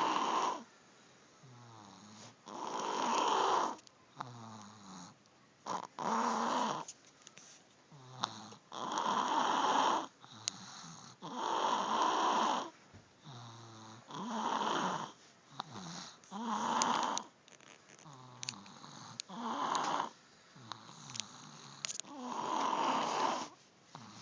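Snoring in a steady rhythm: a loud, rasping breath about every two and a half to three seconds, with a short, low buzzing snore in each gap between them.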